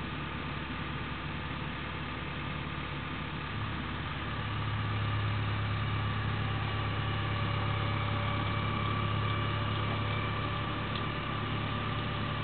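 Heavy vehicle engine running steadily; about four seconds in it grows louder with a stronger low hum, as when the towing vehicle takes up the pull on a tow chain.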